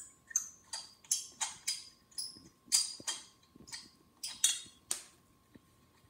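Lug nuts being unscrewed by hand from a car's wheel studs: a run of short metallic clicks, about three a second, that stops about five seconds in.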